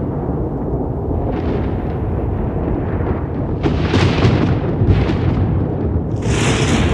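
Thunder rolling continuously in a deep rumble, with sharper crackling claps about 1.5, 4 and 5 seconds in and a louder crack near the end.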